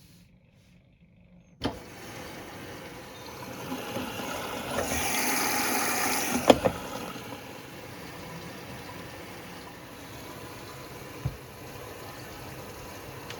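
Hoover Sportswear AI130 washing machine starting to take in water: a click about one and a half seconds in, then a sudden steady rush of water that swells for a couple of seconds mid-way, with a couple of sharp clicks, before settling to a steady hiss. A single dull thump near the end.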